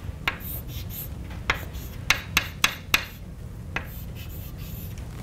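Chalk writing on a blackboard: a run of sharp taps as strokes begin, bunched in the middle, with faint scraping between them.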